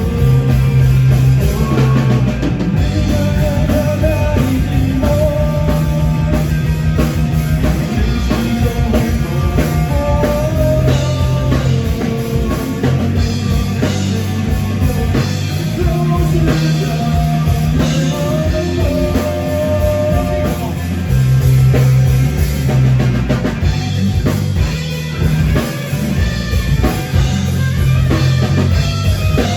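Rock band playing live: a drum kit keeps a steady beat under bass and guitar, with sustained melodic lines over the top.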